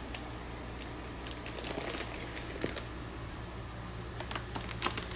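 Light, scattered clicks and crinkles of a plastic fish shipping bag being handled and pushed down in a tub of water, over a steady low hum.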